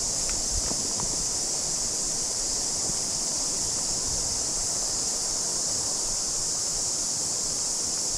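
Cicadas singing in chorus: a continuous high-pitched shrill buzz that holds steady and never breaks.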